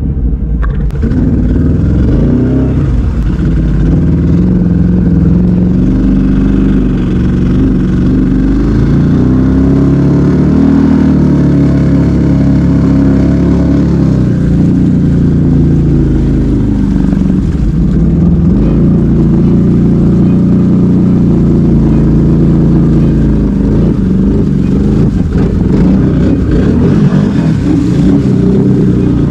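ATV engine running under load, its pitch rising and falling with the throttle.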